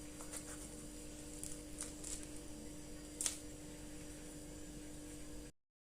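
A faint, steady hum with a few light clicks and one sharper click about three seconds in; the sound cuts off abruptly near the end.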